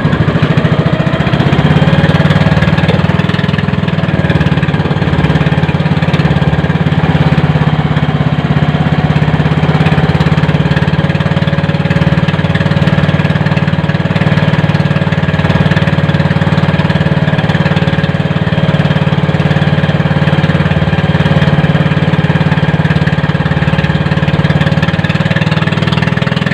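Motorboat engine running loud and steady at an even speed.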